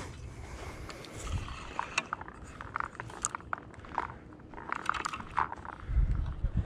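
Scattered small clicks, rustles and scrapes from handling a spinning rod and reel while walking and making a cast, with a low rumble about six seconds in.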